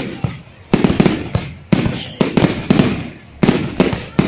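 Aerial fireworks bursting in rapid volleys of sharp bangs, several close together in each volley, each bang trailing off in echoes before the next volley starts.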